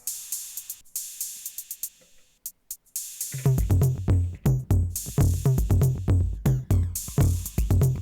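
Elektron Digitakt II drum machine playing a programmed beat: a pattern of hi-hat hits alone at first, then a deep kick and bass pattern drops in about three seconds in.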